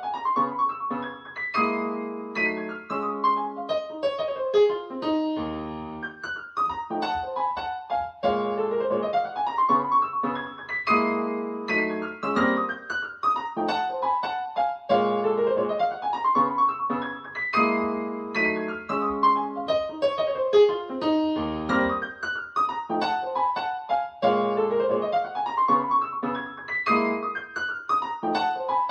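Piano music played back through a KEF iQ1 bookshelf speaker: a repeating figure of quick rising runs, coming round about every four seconds.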